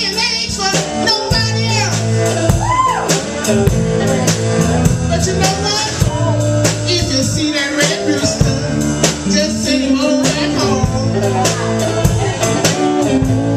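Blues band playing with a singer, over bass, guitar and steady drum beats.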